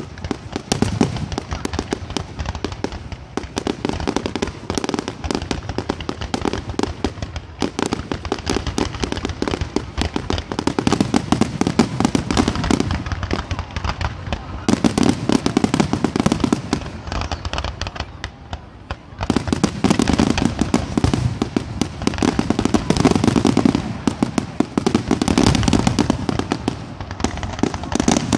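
Aerial fireworks in a dense, continuous barrage: many shell bursts and crackles overlapping, swelling into louder waves every few seconds.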